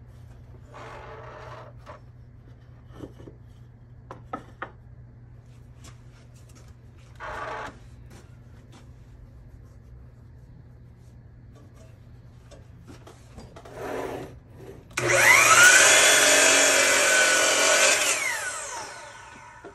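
Boards scraping and clicking as they are slid and set on the saw table. About fifteen seconds in, the Kobalt miter saw's motor starts and the blade cuts through a board for about three seconds, then spins down near the end.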